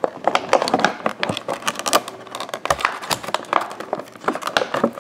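Hands fiddling with plastic toy packaging and the string ties holding a small figure: a dense, irregular run of small clicks, taps and crinkles.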